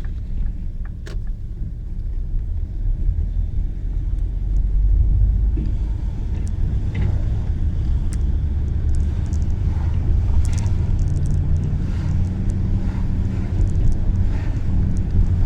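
A motor vehicle running, heard as a steady low rumble, with scattered light ticks over it.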